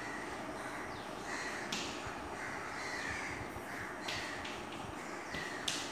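Crows cawing repeatedly in the background, mixed with a few short scrapes of chalk on a blackboard.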